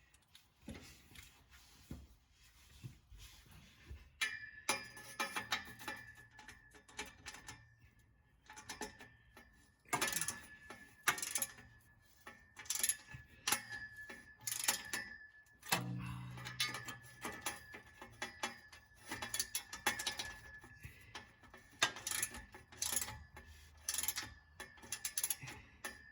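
Hand ratchet wrench clicking in runs as a loosened exhaust nut is spun off, with the clink of tools on metal. The clicking starts about four seconds in and grows denser and louder later on.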